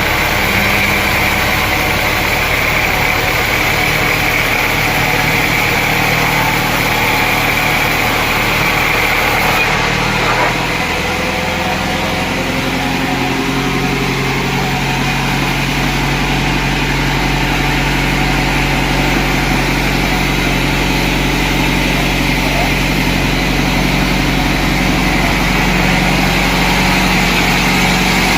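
Sawmill machinery running with a steady engine hum; its pitch shifts lower about ten seconds in.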